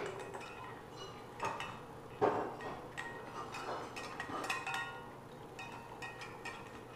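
Two dogs licking and eating frozen dog ice cream from stainless steel bowls: wet lapping with irregular clinks and knocks as tongues, teeth and muzzles hit the metal bowls and push the treats around. A few louder knocks stand out, the loudest about two seconds in.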